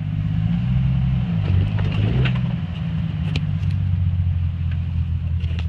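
Jeep Wrangler engine running at low revs as it crawls over boulders, its pitch wavering briefly a second or two in. A couple of sharp clicks come in the middle and near the end.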